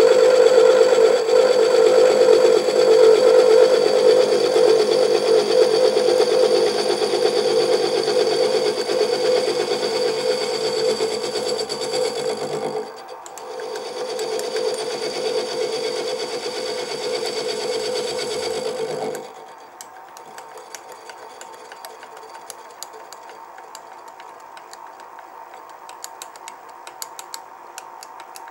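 Sieg SX2P mini mill running at about 500 rpm, its end mill cutting across the top edge of a pedestal casting with a steady whine. It breaks off briefly about 13 seconds in, resumes, then stops about 19 seconds in, leaving a faint hum with light ticks.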